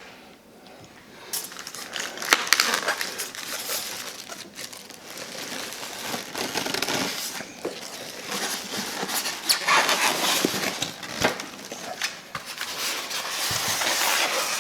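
Plastic wrapping and styrofoam packing rustling and crinkling as parts are pulled out of the box, with scattered sharp clicks and light knocks.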